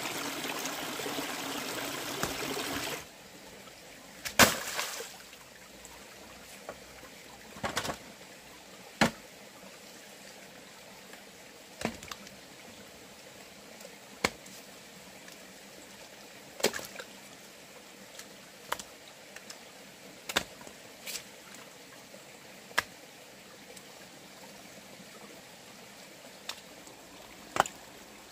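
Running or pouring water that cuts off suddenly about three seconds in, followed by a series of sharp single knocks at irregular intervals, roughly one every two seconds. The first knock is the loudest.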